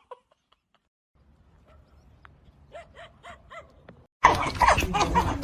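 A dog makes four or five short, soft yips or whimpers. About four seconds in, a sudden loud stretch of dog vocalising and barking takes over.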